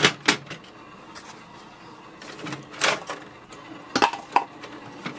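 Plastic paper input tray of an HP OfficeJet Pro 8035 printer being handled: a few separate clicks and scrapes as the tray and its paper-width guides are moved, two of them close together about four seconds in.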